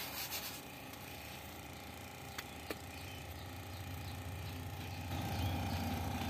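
A vehicle engine idling with a steady low hum, growing louder about five seconds in; a few light clicks of things being handled in the first half second.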